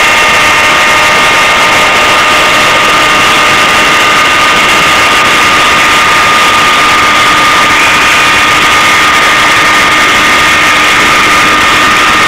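CNC machine running steadily: a loud, continuous mechanical noise with several high steady whining tones over a hiss, the whine shifting slightly in pitch about eight seconds in.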